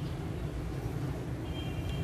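Steady low rumble, with a short, thin, high-pitched call from an Indian ringneck parrot about one and a half seconds in.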